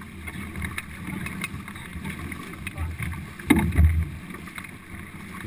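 Racing canoe paddles stroking and splashing in the water, with a steady low rumble on the microphone and frequent short knocks. About three and a half seconds in comes a brief louder sound that falls in pitch.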